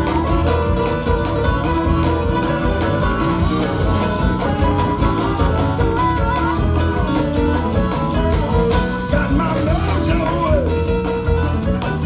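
Live blues band playing loud amplified music: keyboard and rhythm section with a steady heavy low end, and a lead voice at the microphone.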